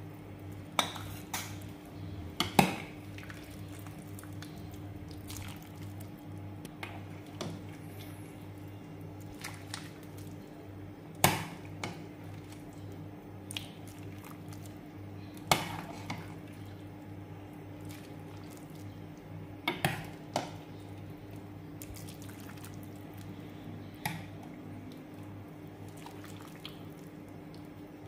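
Metal ladle clinking against a nonstick pot and a white ceramic bowl as soup is ladled out, with liquid dripping and pouring. There are about nine sharp clinks at irregular intervals over a low steady hum.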